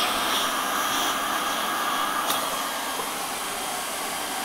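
Hand-held hot-air plastic welding gun blowing steadily, its nozzle pressed into the crease of a gutter liner to heat-weld a stop end in place.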